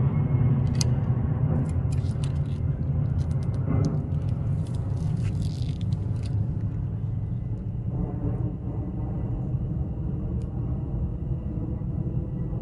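Steady low rumble with a faint even hum running through it, and a scatter of light clicks and rustles in the first half, as the bow is held and aimed before a shot.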